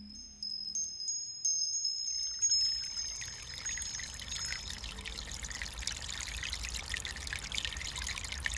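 High chime tones ringing and fading out over the first half, while the rushing sound of running water swells up and then carries on steadily.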